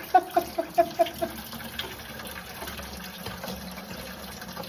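Old engine coolant pouring from the truck's cooling system into a pail: a quick run of glugs in the first second or so, then a steady pour.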